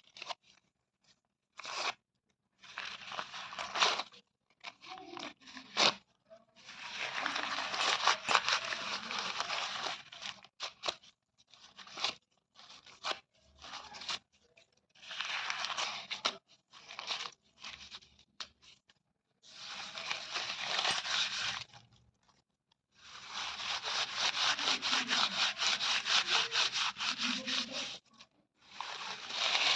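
A series of rips as material is torn, each a crackly tearing noise. Some are short jerks and the longest run several seconds, with brief silences between them.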